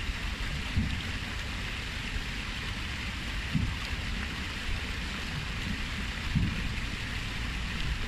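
Water cascading down a stone-stepped waterfall into a pool: a steady splashing rush, with a few brief low rumbles.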